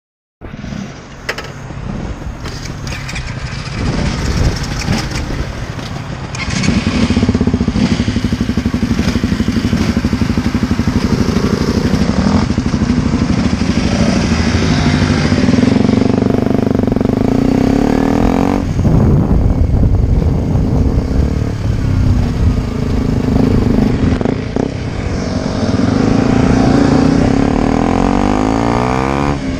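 KTM RC 125's single-cylinder engine running under way, heard from the rider's helmet, its revs rising and falling with the gear changes. It gets louder about six seconds in.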